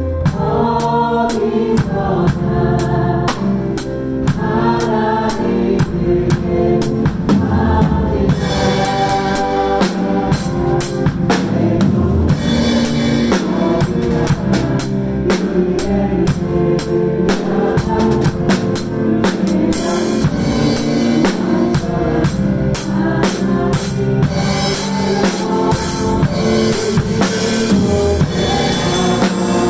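Drum kit played along to a Korean praise-and-worship song, with the song's band and singing underneath and steady kick and snare. From about eight seconds in the cymbals are hit much more densely.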